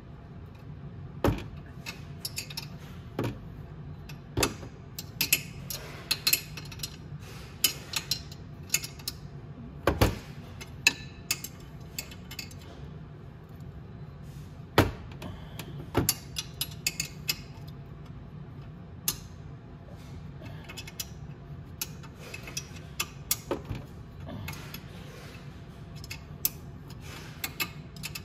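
Wrench clinking and clicking on a motorcycle's exhaust manifold bolt as it is tightened: scattered sharp metal clicks and knocks at irregular intervals, a few of them louder, over a steady low hum.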